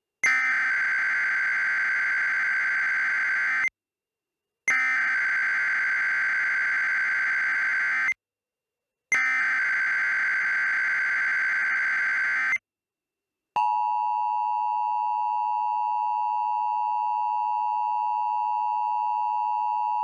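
Emergency Alert System SAME header: three long bursts of shrill warbling data tones, each about three and a half seconds with short gaps. About thirteen and a half seconds in, the steady two-tone EAS attention signal starts and holds.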